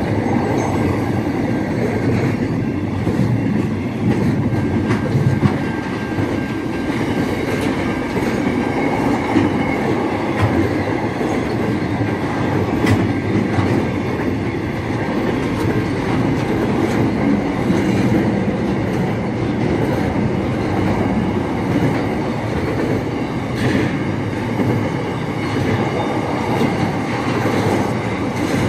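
Container freight train of loaded flat wagons rolling past close by: a steady rumble of wheels on rails with many small irregular clicks, unbroken throughout.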